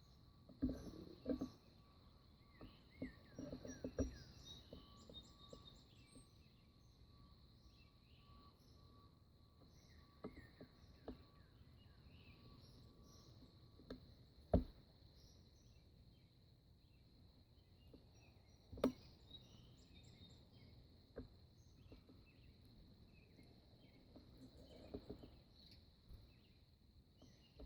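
Faint early-morning garden ambience: a steady high-pitched insect trill with scattered bird chirps. A few sharp knocks stand out, a cluster in the first four seconds, then single ones about 15 and 19 seconds in.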